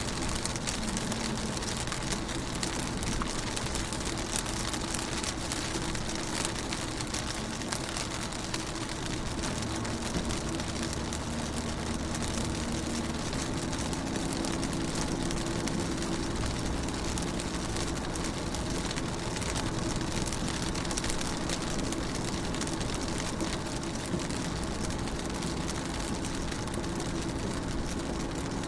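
Rain falling on a car's windows and roof, heard from inside the car as a steady hiss of many fine drop ticks, with a low steady hum underneath.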